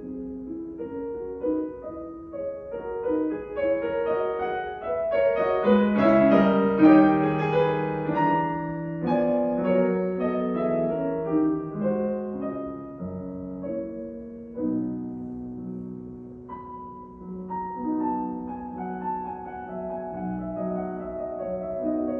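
Solo classical piano played on a Yamaha concert grand. The music swells to its loudest passage about six to eight seconds in, then settles into softer, sustained chords.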